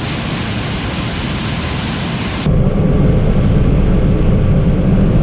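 A steady rushing hiss that cuts off abruptly about halfway, replaced by a louder, steady low drone of harvest machinery engines.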